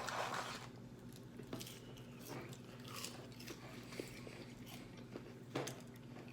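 People chewing and biting chicken nuggets, with a short noisy burst at the start and then scattered small mouth clicks.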